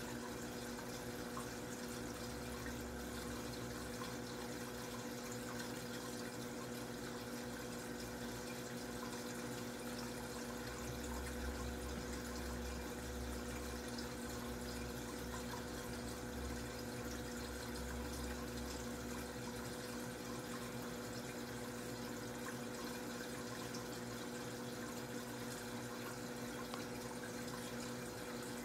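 Aquarium filter running: a steady trickle of water with a constant hum.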